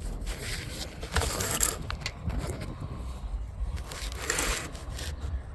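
Crunching and scraping handling noises as the camera is moved and set in place, the sharpest about a second and a half in and another about four and a half seconds in.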